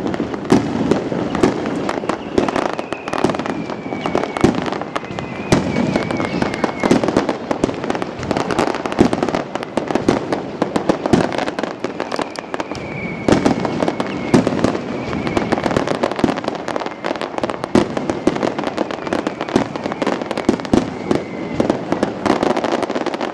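Aerial fireworks display: shells bursting in rapid succession, a dense, unbroken run of bangs and crackling.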